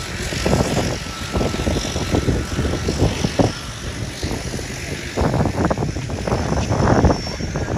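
An aircraft engine running in the distance across the airfield, mixed with crowd voices and irregular rumble.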